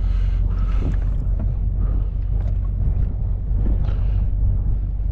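A vehicle engine running steadily as a low, even rumble while travelling across the ice, with wind buffeting the microphone.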